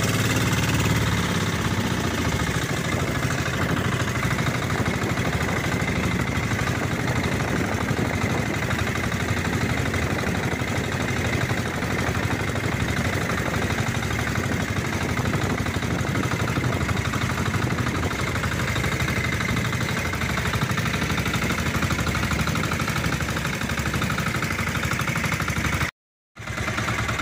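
Engine of a wooden outrigger fishing boat (bangka) running steadily under way, with the rush of water and wind along the hull. The sound drops out completely for about half a second near the end.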